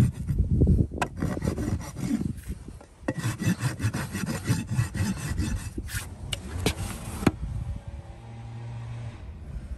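A farrier's steel hoof rasp filing a horse's hoof wall, in a rapid run of rough scraping strokes that stops about seven seconds in.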